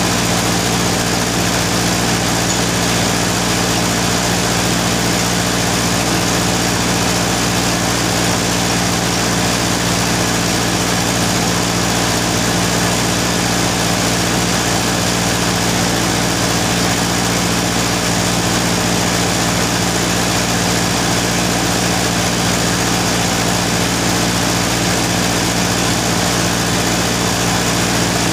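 Machinery running steadily: a constant, unchanging hum made of several steady tones over a noisy hiss.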